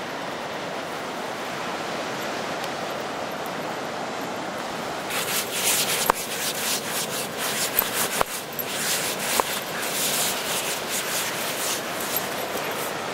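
A dog digging fast in beach sand with its front paws, a rapid, irregular run of scraping and spraying sand that starts about five seconds in, heard close up, with a few sharp clicks among it. Before that only a steady hiss of surf.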